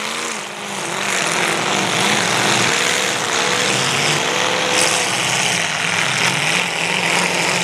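Several demolition derby cars' engines running and revving together across the arena, a dense steady engine noise whose pitch wavers up and down.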